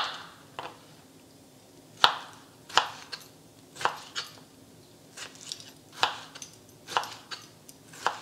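Chef's knife chopping kiwi on a cutting board: sharp, uneven knocks of the blade hitting the board, roughly one a second, some in quick pairs.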